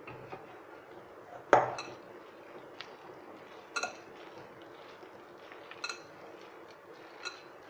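Corn kernels, gram flour and water being mixed by hand in a glass bowl: a faint wet mixing noise with four sharp clinks against the glass, the first, about one and a half seconds in, the loudest.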